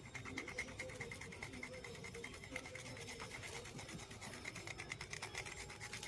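Quick, repeated scraping strokes on a singed goat leg, scrubbing off the charred hair and skin.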